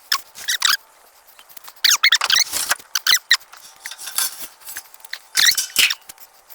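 Repeated high-pitched squeaks, each short and wavering in pitch, coming in irregular clusters of several a second.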